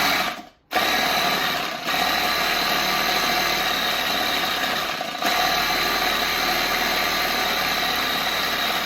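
Electric spray paint can shaker running steadily, shaking a capped water bottle of protein drink. It stops for a moment just after the start, then runs on with a steady whine.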